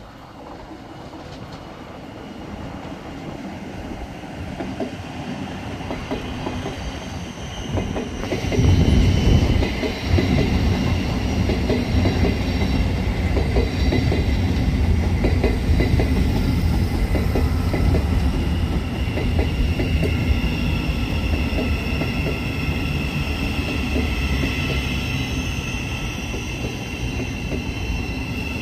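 A train passing through the station: its rumble builds steadily, turns loud about eight seconds in and stays loud, with high-pitched wheel squeal over the rumble.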